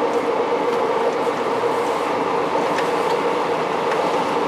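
'Tin Hare' diesel rail motor running along the line, heard from inside: a steady drone of engine and wheel noise with a constant hum, and a few faint clicks from the track.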